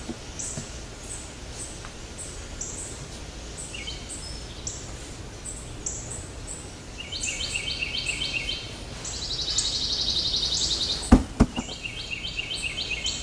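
Outdoor birds and insects calling: a high chirp repeating about twice a second, with bursts of rapid trilled notes in the second half. Two sharp knocks come close together near the end.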